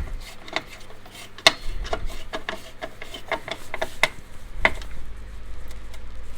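Spanner tightening the blade-guard screw on a mitre saw: scattered small metal clicks and scrapes of the tool on the screw, at an uneven pace.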